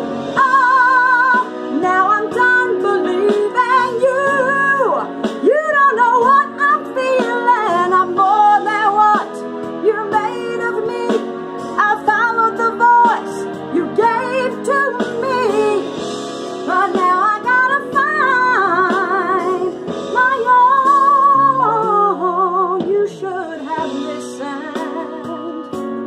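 A woman singing wordless runs and long held notes with wide vibrato, over a backing track of sustained instrumental chords.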